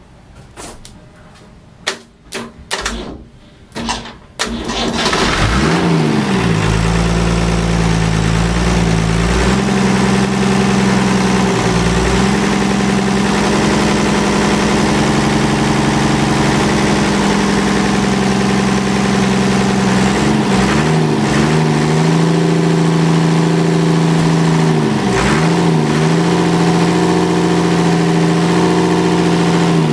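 Ford Lehman six-cylinder marine diesel starting about four seconds in after a few short knocks, then running steadily, an engine back in service after several years laid up. Its speed dips briefly and recovers a few times.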